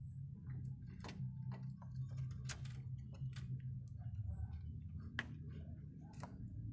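Irregular small clicks and knocks of hands handling plastic parts and wiring behind a car headlight while pulling off the headlamp's rubber dust cover, over a steady low hum.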